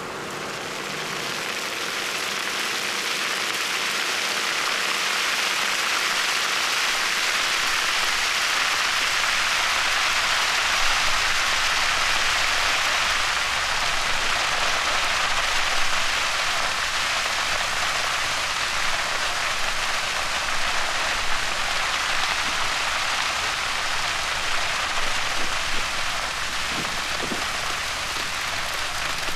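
Sugarcane field burning: a dense, steady crackle of flames through the cane stalks, building up over the first few seconds, with sharper pops near the end.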